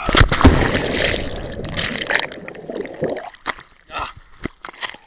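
A person plunging into the sea from a cliff: a loud splash on entry, then about three seconds of rushing, bubbling water as the camera goes under, then choppy splashes and water being spat out as he surfaces near the end.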